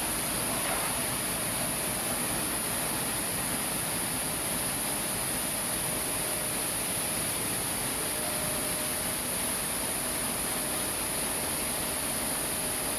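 Rice mill plant machinery running: a steady, unchanging noise with a strong high hiss.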